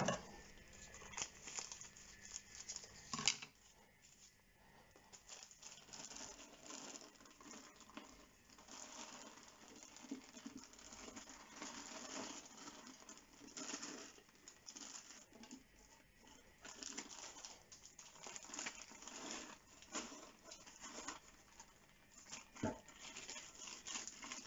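Loose potting soil mixed with coco peat pattering as it is poured from a plastic bag into a glass enclosure and worked in by hand, with the bag crinkling. Faint and uneven, with a sharper knock about three seconds in.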